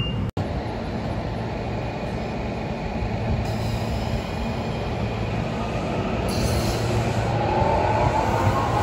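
SEPTA Regional Rail electric multiple-unit train rolling past, a steady rumble of wheels on the rails that grows a little louder toward the end. Near the end a wheel squeal joins in.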